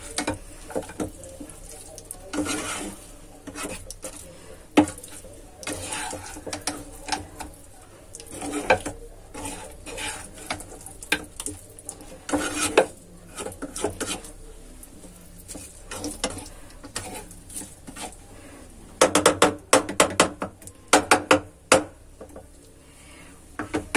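Spatula stirring and scraping chicken and sliced onions around a frying pan, with irregular clinks and scrapes, and a quick run of sharp clatters against the pan about 19 seconds in.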